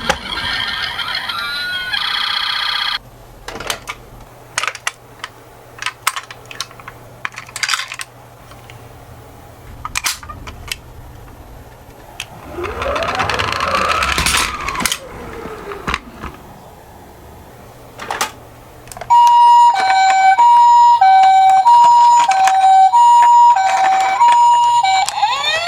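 Scattered small clicks and clacks, with one rising-then-falling siren-like glide near the middle, then a loud two-tone hi-lo ambulance siren (the Japanese 'pii-poo' pattern) alternating about once every half second, starting about three quarters of the way in.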